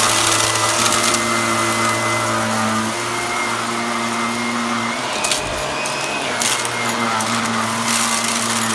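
Shark Lift-Away upright vacuum cleaner running steadily over a rug, its motor humming under the rattle and clicking of dry rice grains and macaroni being sucked up through the head.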